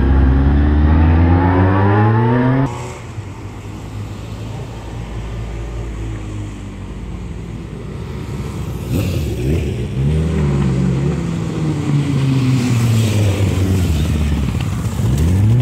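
Onboard sound of a Honda CB600F Hornet's inline-four engine accelerating, its pitch climbing steadily, until it cuts off sharply. After the cut comes quieter roadside noise, then motorcycles coming round a hairpin and passing, their engine pitch rising and falling through gear changes.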